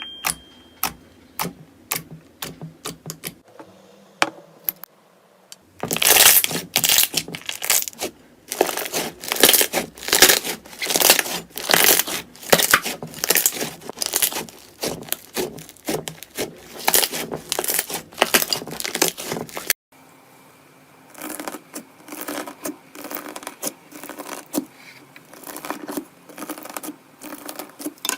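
Slime being squeezed and pressed by hand, giving sharp crackles and pops: a few scattered clicks at first, then dense, loud crackling from about six seconds in. This breaks off suddenly and is followed by a softer run of crackling.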